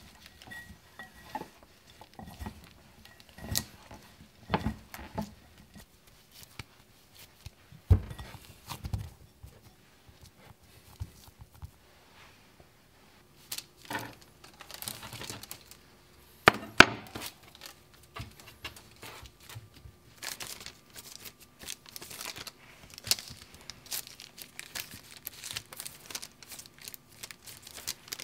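Hands squeezing and rubbing crumbly rice-flour chocolate scone dough in a glass bowl, then a knife pressing through the shaped dough onto parchment paper, which rustles and crinkles. Many small clicks and rustles, with a few sharper knocks; the loudest come about 8 and 16½ seconds in.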